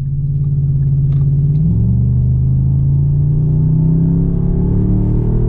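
A motor vehicle engine running steadily, its pitch shifting about a second and a half in.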